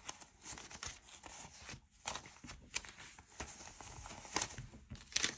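Paper banknotes rustling as a stack of bills is counted and flicked through by hand, with scattered sharp snaps of notes.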